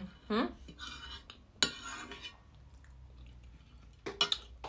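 Metal spoon scraping and clinking on a plate, with a sharp clink about a second and a half in and a quick cluster of clinks near the end as the spoon is set down. A short hummed vocal sound comes just after the start.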